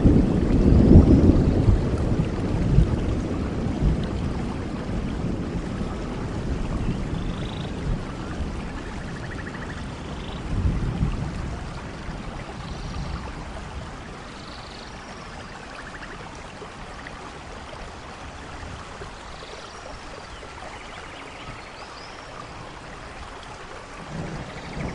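Steady rain falling, with a low rumble of thunder at the start that rolls away and fades over the first dozen seconds; another low rumble begins near the end.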